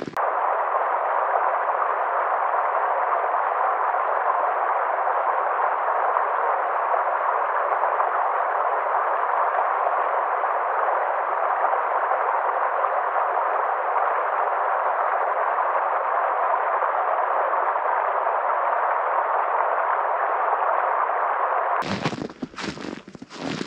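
A loud, steady, unchanging hiss like static that starts abruptly and cuts off abruptly about 22 seconds in. After it, footsteps crunch in snow again.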